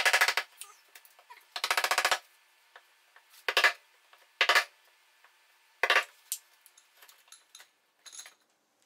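Cordless drill-driver run in about six short bursts, each a fast rattle of clicks, driving screws into a wooden chest to fasten a forged handle.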